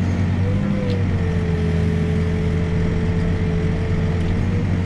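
Backhoe's diesel engine running steadily, with a sustained hydraulic whine while it digs through tough dirt.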